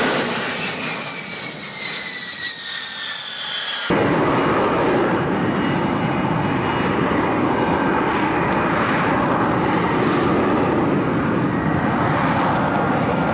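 F-35B jet engine: first a turbine whine with several high tones sliding down in pitch. About four seconds in, it cuts abruptly to a louder, steady jet roar.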